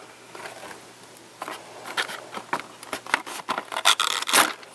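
Toy packaging being opened by hand: a string of scrapes, crinkles and clicks, starting about a second and a half in and loudest near the end.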